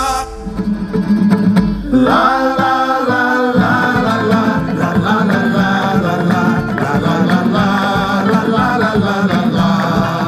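Music with singing and plucked guitar; after a brief dip at the start, a singing voice comes in about two seconds in.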